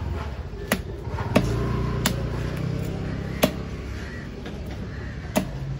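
Five sharp chops of a knife striking a chopping block while cutting up a mahi-mahi, spaced irregularly, over a steady low background rumble.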